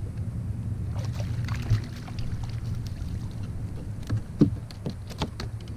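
Kayak on the water: a steady low rumble with scattered knocks and rattles against the hull, the loudest about a second and a half in and again past four seconds.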